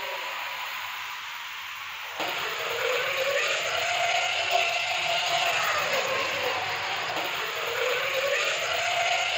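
Battery-powered toy locomotives running on plastic track: small electric motors whining and wheels running along the rails. The whine swells up and down in pitch every few seconds, and the sound jumps louder about two seconds in.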